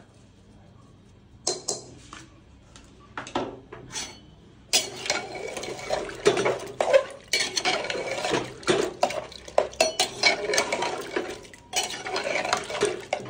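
Jackfruit pieces being stirred with a spoon in a metal pressure cooker, mixing in the salt and turmeric. It starts with a few separate clinks, then from about five seconds in becomes continuous clattering and scraping against the pot.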